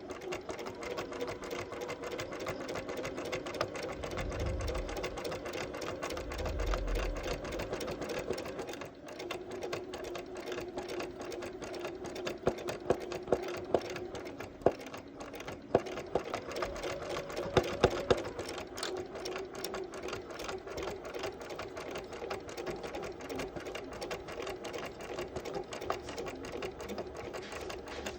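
Bernina 180 Artista sewing machine stitching fast for free-motion quilting: a steady motor hum under rapid needle strokes, its speed shifting a few times as it runs. A few sharper, louder clicks come through in the middle.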